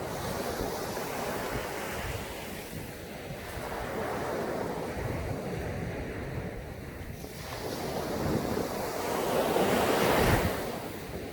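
Sea waves breaking on a sandy beach, with a steady wash of surf. One wave builds over the last few seconds, breaks just after ten seconds in, and falls away. There is wind noise on the microphone.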